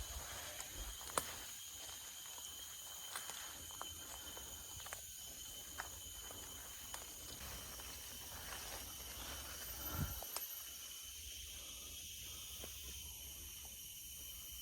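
Forest ambience: insects droning in several steady high tones, with scattered faint clicks and snaps.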